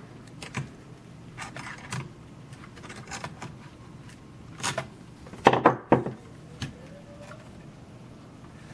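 Metal pliers and a small screwdriver clicking and scraping in short, irregular taps as the pliers grip the screwdriver shaft for extra torque to break a tight screw loose. The loudest cluster of clicks comes about five and a half seconds in.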